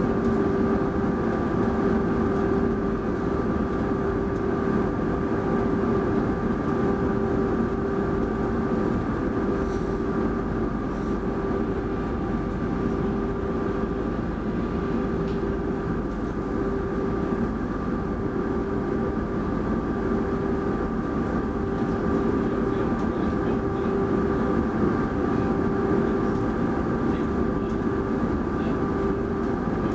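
Stationary X10 electric commuter train heard from inside the carriage: its onboard equipment hums steadily, with a few steady whining tones over a low rumble.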